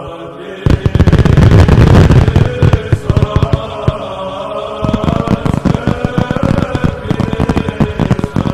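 Fireworks popping and crackling continuously, with a loud low burst about a second in, over voices chanting a sustained hymn.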